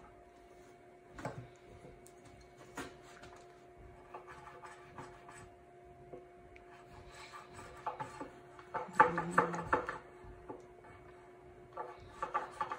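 Hand tools working the edge of a walnut stool seat: scattered short scraping strokes and light knocks on the wood. A louder run of strokes comes about nine seconds in and another near the end, over a faint steady hum.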